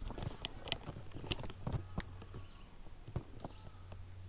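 A string of sharp clicks and knocks of small camping gear being handled, thinning out after about two seconds with one more knock a little after three seconds, over a low steady hum.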